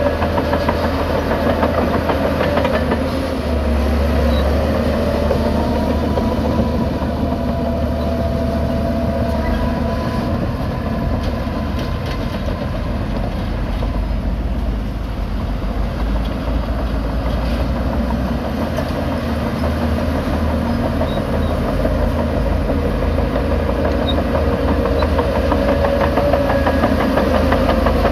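Heavy diesel engines of earthmoving machines running steadily, with a faint whine that glides up and down in pitch now and then.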